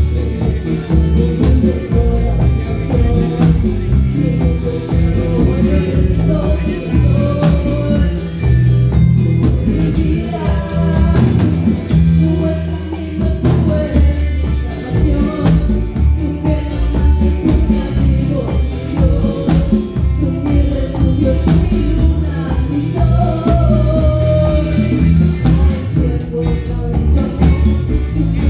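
Live band playing a song through a PA system, with electric guitar, drum kit and congas behind a singer.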